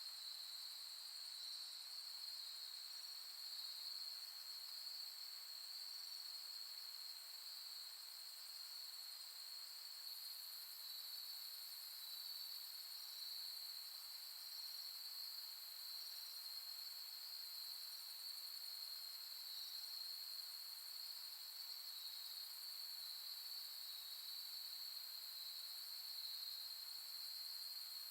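Steady chorus of autumn insects in the grass at night: a continuous high trill, with faint short chirps rising over it now and then.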